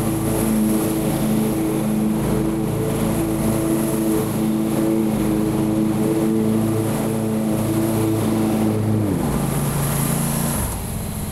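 Lawn mower engine running steadily, its pitch dropping to a lower, steady note about nine seconds in.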